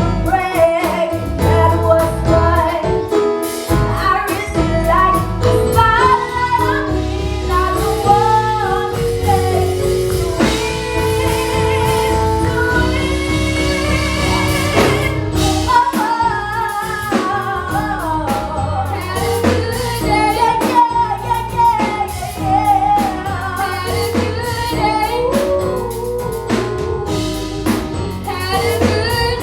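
A gospel song: a woman singing over a band with drums and guitar.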